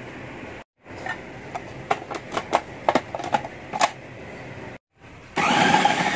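Sharp plastic clicks and knocks as the food processor bowl is loaded and its lid fitted, then about five seconds in the food processor's motor starts and runs steadily, chopping softened chillies and onions. The motor is the loudest thing.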